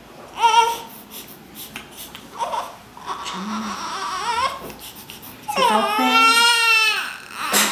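Newborn baby crying: a short cry about half a second in, some fussing, then one long wavering cry near the end.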